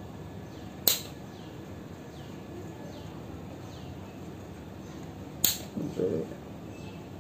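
Two sharp clicks of a long-nosed gas lighter's spark igniter, about four and a half seconds apart, as it is fired at the end of a wooden stick; a brief softer sound follows the second click.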